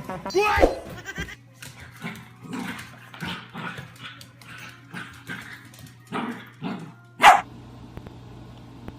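A dog vocalising: a short pitched call that falls in pitch about half a second in, a run of quieter short sounds, and one loud sharp bark a little after seven seconds.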